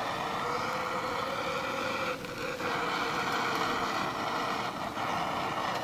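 Handheld propane torch burning with a steady hiss as its flame lights pine needles in a bee smoker. The hiss dips briefly about two seconds in and again near five seconds.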